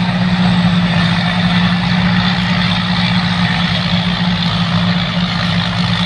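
Engine of a 2021 Thai Charoen Kanchang combine harvester running loud and steady, with a fast low throb under a constant drone.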